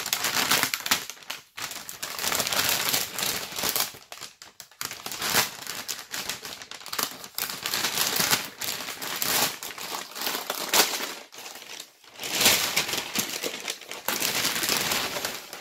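Delivery box of snacks being opened and unpacked by hand: irregular crinkling and rustling of its packaging, with a few short pauses.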